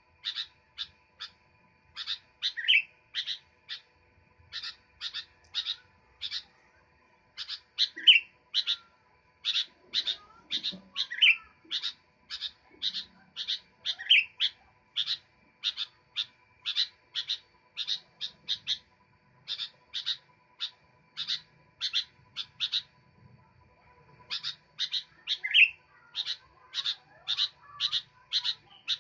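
Sooty-headed bulbul (kutilang) singing persistently: runs of short sharp notes, several a second, broken every few seconds by a longer slurred note, with a brief pause a little before the end.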